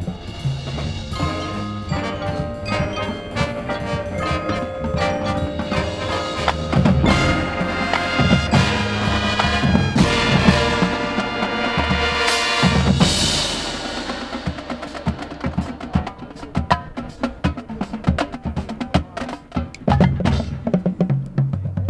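High school marching band playing its field show: the winds hold sustained chords that swell to a loud peak about ten to thirteen seconds in, then fall away, leaving the drumline and the front-ensemble mallet percussion playing a busy rhythm of sharp, rapid hits.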